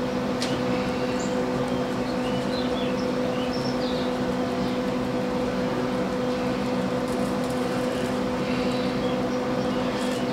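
A steady machine hum with a low two-tone drone, unchanging throughout, with a few faint high chirps over it.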